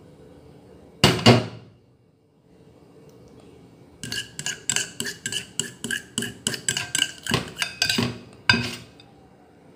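Stainless steel kitchenware clanking: one loud knock about a second in, then a fast run of ringing metallic taps, roughly three or four a second, for about five seconds.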